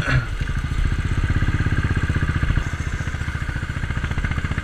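Royal Enfield Classic 500's single-cylinder engine running while riding, a steady, even thump of exhaust pulses.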